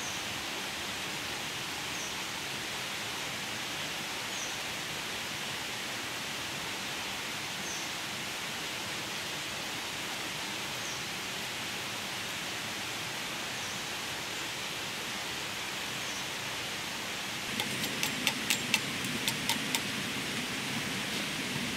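Steady, even rushing noise of the outdoor surroundings, with a faint short chirp every two to three seconds. Near the end comes a quick run of about ten sharp clicks or snaps.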